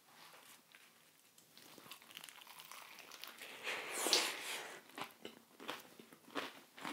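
A bite into a deep-fried chicken burger's crisp breaded coating, with a crackling crunch that builds to a peak about four seconds in. It is followed by several short crunches of chewing.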